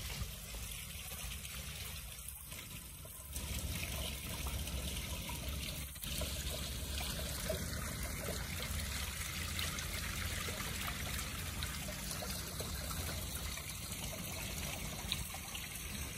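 Water trickling steadily from a small garden fountain, pouring from a spout into its clay pot basin; it gets louder about three seconds in.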